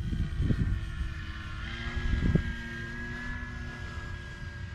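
Electric motor and propeller of a Dynam C-188 Air Tractor RC plane in flight at a distance: a steady high whine that steps up a little about two seconds in. Low buffeting of wind on the microphone comes in gusts through the first half.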